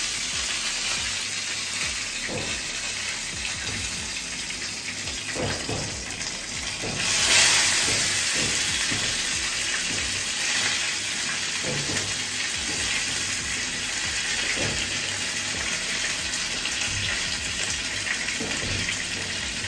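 Hot oil sizzling and spattering in a frying pan as pumpkin-leaf-wrapped lentil-paste parcels (paturi) shallow-fry. The sizzle swells about seven seconds in as another parcel goes into the oil.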